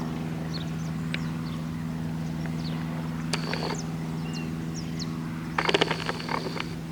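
Cessna 152's Lycoming four-cylinder engine and two-blade propeller running with a steady drone, and birds chirping over it. A louder burst of sharp clicks and rattles comes about five and a half seconds in.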